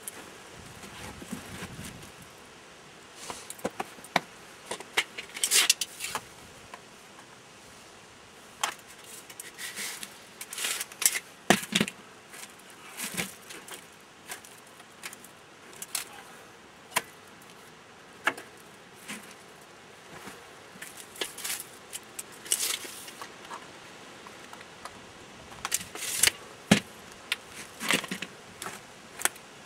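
Stainless steel double-wall chimney pipe sections clinking and scraping as they are handled and worked together: an irregular scatter of sharp metallic clicks and rattles.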